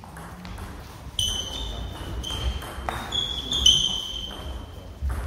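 A fast table tennis doubles rally: the plastic ball clicks sharply off bats and table in quick back-and-forth hits, starting about a second in, each hit ringing briefly in the hall.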